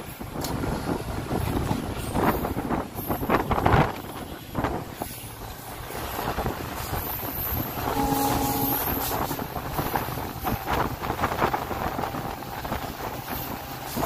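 Express train running on the rails: a steady rumble and rattle of wheels on track with wind noise, and several knocks in the first few seconds. About eight seconds in there is a brief pitched tone, roughly a second long.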